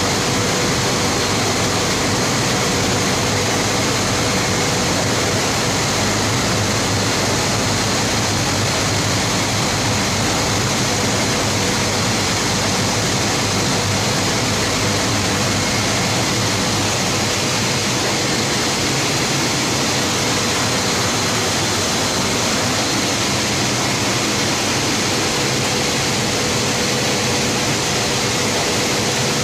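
Tammermatic RoboJet tunnel car wash machinery running: a steady, loud rush with a faint steady hum underneath.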